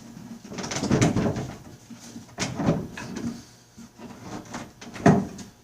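Irregular wooden knocks and clunks from a stuck part of a vintage wooden sewing machine cabinet being tugged and jiggled loose, with the loudest knocks about a second in, around two and a half seconds in, and about five seconds in.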